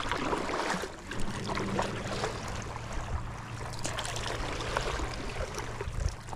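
Water splashing and trickling as a paddle dips in stroke after stroke on a stand-up paddleboard. A low steady hum runs underneath for a few seconds in the middle.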